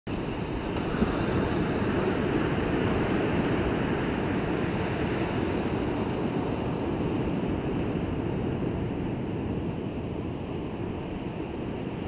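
Steady rushing of sea surf, with no separate wave crashes standing out.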